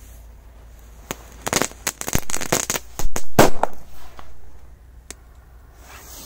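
Korsar-4 effect firecracker going off: a rapid string of sharp pops and crackles starting about a second in, the loudest bangs about three seconds in, then a few last scattered pops.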